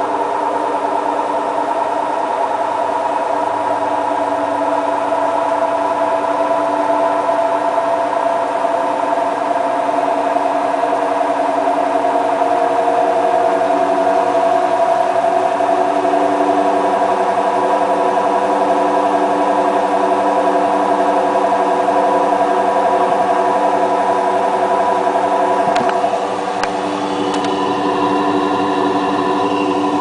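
Hotpoint Ultima WT960 washing machine spinning its empty drum at about 800 rpm on an intermittent spin between rinses: a steady motor whine. About 26 seconds in, the level dips slightly and the pitch of the whine shifts.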